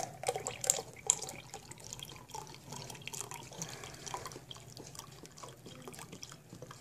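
Orange juice poured from a carton into a drinking glass, a liquid stream splashing and dripping into the glass as it fills, growing fainter toward the end.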